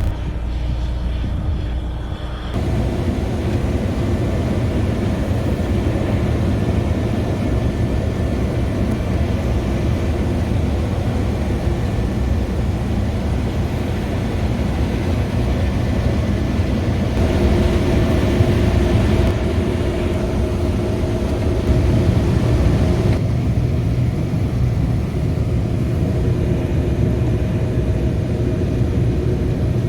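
Combine harvester running steadily in a wheat crop, a loud engine drone with a few steady humming tones; the sound shifts abruptly in tone a few times.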